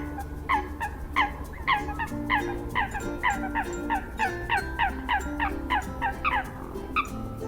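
A bird calling in a rapid series of short, sharply falling notes, several a second, over background music.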